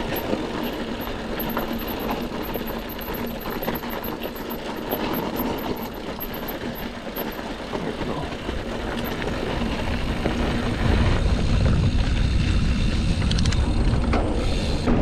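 Hardtail mountain bike rolling down a loose gravel trail, its tyres and frame making a continuous rough rolling and rattling noise. A heavy low rumble of wind buffeting the microphone sets in about eleven seconds in as speed builds.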